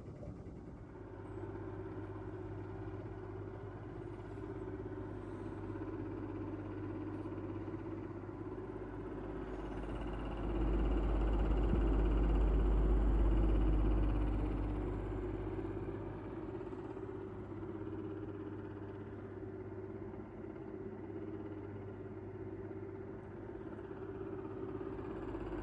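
Stadler Form Oskar humidifier's fan running at its faster speed: a steady hum with a wobbling sound, the sign of a fan that is not stable on its mount, which the owner thinks is not normal. A deeper rumble swells for a few seconds about ten seconds in.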